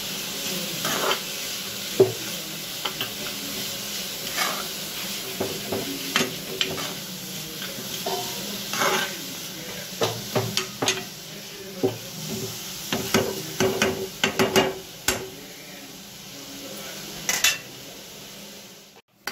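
Chopped vegetables sizzling in a nonstick frying pan as they are stirred, the utensil scraping and clicking against the pan again and again, busiest in the second half.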